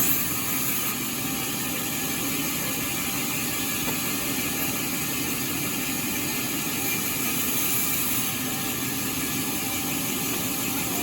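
Sawmill machinery running steadily, a continuous motor hum and noise with no distinct strikes, a little brighter about seven seconds in.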